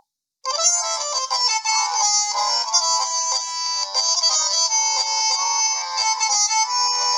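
A preset ringtone melody playing on a BQ-5007L Iron smartphone, starting about half a second in. It is a thin, bright tune with no bass.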